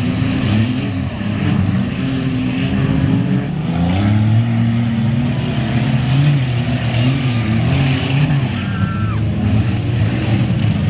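Several off-road derby cars' engines running hard on a dirt track, their pitch rising and falling as the drivers rev and let off.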